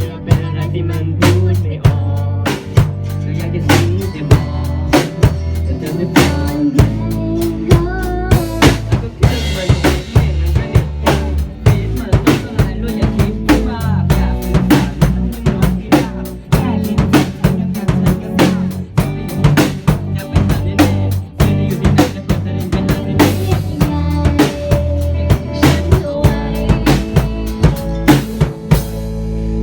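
Band music led by a drum kit playing a steady beat with kick and snare hits over bass notes.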